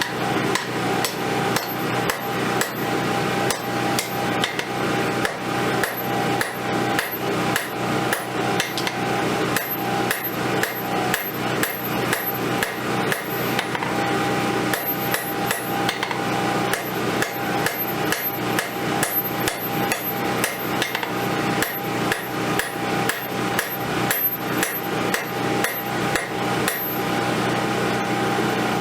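Hammer blows on hot rail-spring-clip steel on an anvil, forging a wakizashi blade's bevels and profile: a steady run of strikes, about two to three a second, over a steady hum.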